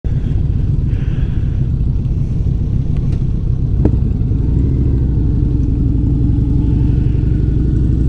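1984 Honda Gold Wing Aspencade's flat-four engine running at a steady speed: a loud low rumble, with one sharp click about four seconds in.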